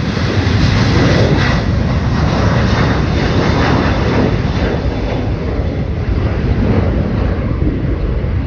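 Jet engines of a Qantas twin-engine widebody airliner at takeoff thrust, a loud steady roar as it climbs away, easing slightly near the end.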